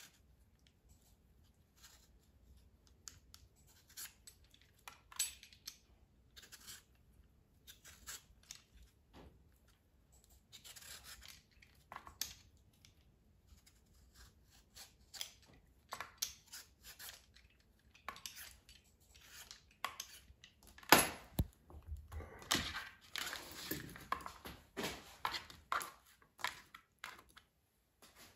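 Vegetable peeler scraping the skin off a mango in short strokes, the blade rasping through the peel, with the strokes coming faster and louder in the last third and one sharp knock about three quarters through.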